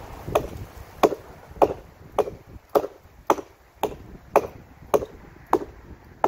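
Hatchet chopping into a fallen tree limb: about eleven sharp strikes in a steady rhythm, roughly two a second.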